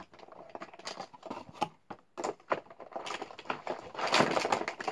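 Makeup items and their plastic container being handled: irregular small clicks and knocks, with a louder rustling scrape about four seconds in.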